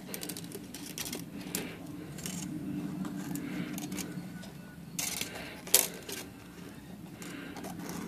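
Thin steel typewriter mainspring being coiled by hand into its drum: scattered light metallic clicks and scrapes, the sharpest about six seconds in, over a faint steady hum.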